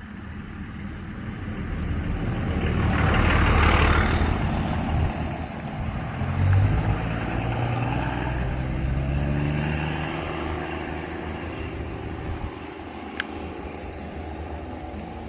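A motor vehicle passing by: its engine grows louder to a peak about four seconds in, then its engine note carries on and fades away over the next several seconds.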